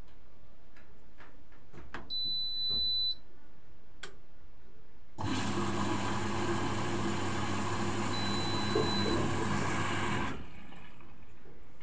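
Washing machine being started: a few faint clicks, then a single beep of about a second, and a few seconds later a rush of water pouring in through the inlet valve with a low hum, which starts and cuts off suddenly after about five seconds.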